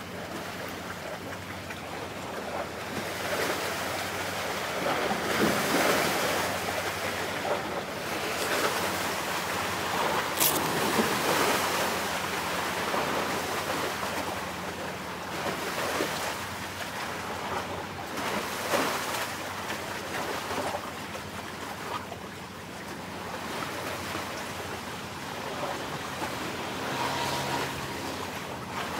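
Sea waves washing in irregular surges, several seconds apart, with wind rumbling on the microphone. A faint steady low hum, the ships' engines, runs underneath.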